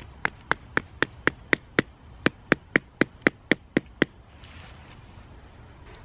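The pommel of a Leatherman Signal multi-tool hammering a stake into the ground: a steady run of about seventeen sharp knocks, about four a second, stopping after about four seconds.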